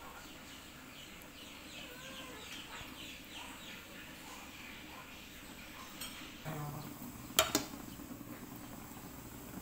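Fast, repeated high chirps from birds in the background, then light clatter and two sharp knocks of a utensil against the frying pan about seven and a half seconds in.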